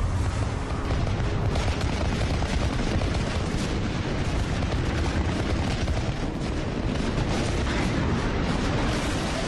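Barrage of anti-aircraft gunfire and explosions: rapid shots packed closely together over a steady low rumble, without let-up.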